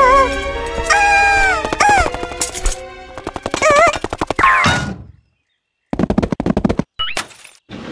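Cartoon soundtrack of music and comic sound effects: a fast rattling run of clicks under high, wavering squeaky sounds that glide up and down. It cuts out abruptly for under a second about five seconds in, then comes back as scattered clicks.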